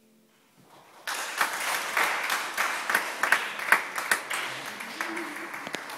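A grand piano's last chord fades out, then about a second in a small audience starts applauding, the clapping thinning towards the end.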